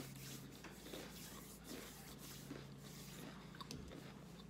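Faint chewing of a mouthful of cracker, ham and cheddar with the mouth closed, with a few soft irregular crunches.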